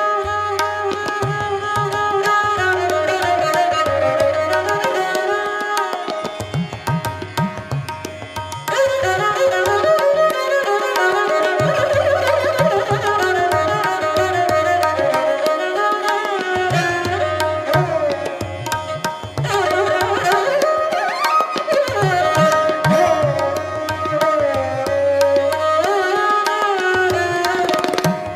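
Background instrumental music with a melody over a steady drum rhythm.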